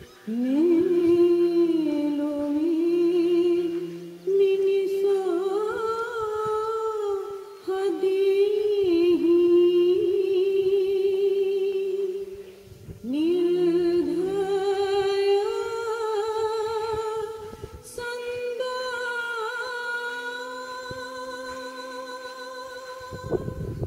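A single voice singing long, drawn-out notes with a wavering vibrato, in phrases of a few seconds with short breaks, over a faint low steady tone at times.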